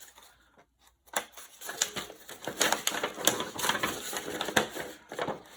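Plastic parts and packaging of a toy robot kit being handled and sorted: a dense run of small clicks, rattles and crinkles that starts about a second in.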